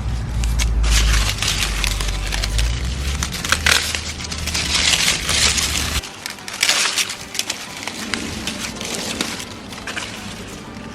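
Corn stalks, leaves and husks rustling and crackling with many small cracks and snaps as ears of corn are pulled off the stalks. A low rumble sits under it and stops about six seconds in.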